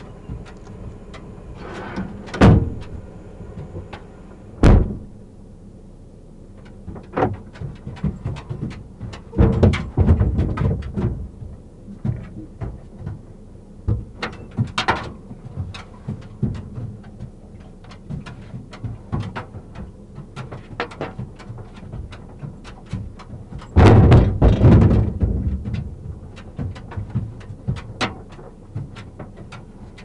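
Irregular knocks, clicks and thumps of a car being searched by hand, with items shifted about inside the car and its doors bumped. The loudest thumps come about 10 seconds in and again near 24 seconds.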